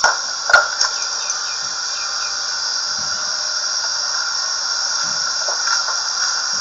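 Sharp knocks of thrown screwdrivers striking the target: one at the very start, a louder one about half a second in and a fainter one just after, over a steady high hiss and whine.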